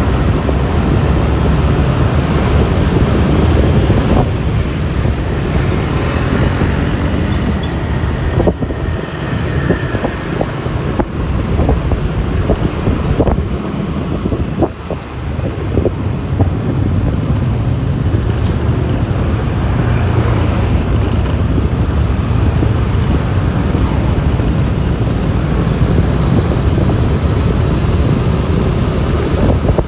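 Road noise while riding a Yamaha Lexi LX 155 scooter: wind on the microphone, the scooter's engine and tyres, and the surrounding traffic, steady throughout. A run of short knocks comes in the middle.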